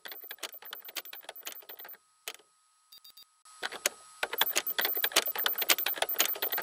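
Rapid, irregular clicking and ticking sound effect over faint steady high electronic tones. It comes in two stretches: one that stops about 2 s in, and a louder, denser one from about three and a half seconds in.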